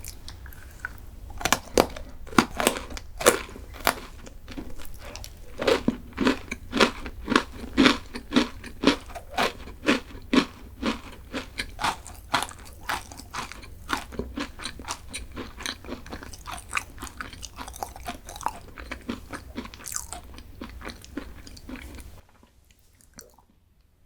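Close-miked chewing of a crunchy chocolate snack: a fast run of crisp crunches, about two or three a second, that stops abruptly near the end.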